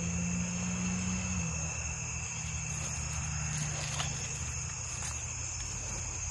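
Crickets chirping steadily in a continuous chorus of high, unbroken trills, over a low steady hum.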